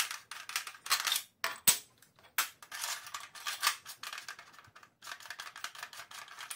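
Hard plastic and metal handling clicks and scraping as the barrel is swapped on a modified Nerf Longshot, with a threaded aluminium blaster barrel in hand. The clicking is irregular, with a few sharper knocks, the loudest about a second and a half in.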